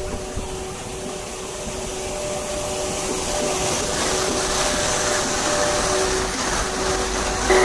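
EF81 electric locomotive pulling out slowly past close by: a steady whir of its cooling blowers with a few steady hum tones, and a rushing hiss of the moving train that builds and grows louder.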